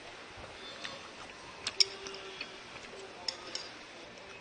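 Chopsticks clicking against a bowl while udon noodles are picked up: a few short sharp ticks, the loudest about halfway through, over a low background.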